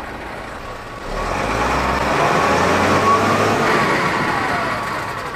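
SDLG LG936L wheel loader's diesel engine idling, then revved up about a second in and held at raised revs, easing off slightly near the end.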